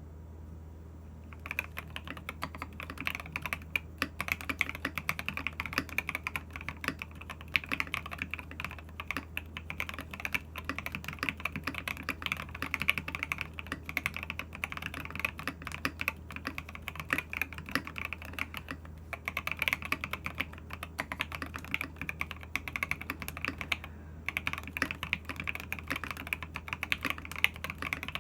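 Fast, continuous typing on a RAMA U80-A mechanical keyboard with a brass plate, tall SA Bliss keycaps and Tangerines V2 switches lubed with Krytox 205G0. Keystrokes start about a second and a half in, with brief lulls twice later on.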